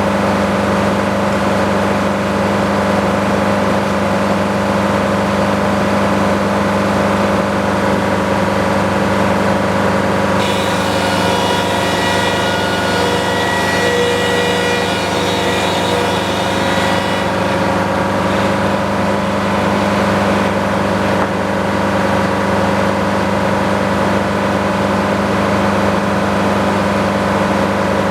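Sawmill running with a loud, steady engine drone. From about a third of the way in, a higher whine rides over it for several seconds.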